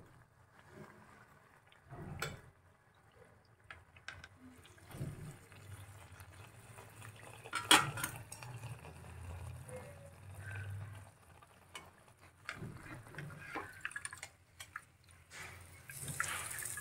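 Athirasam deep-frying quietly in oil in a metal kadai, with a steel slotted skimmer knocking against the pan a few times; the loudest knock comes about eight seconds in. Near the end oil drips and trickles from the perforated skimmer back into the pan as the athirasam is lifted out.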